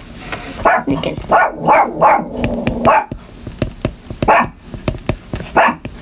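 A dog barking, a quick run of short barks over the first three seconds, then two more barks spaced well apart. Light clicks of a stylus tapping on a tablet screen sound between them.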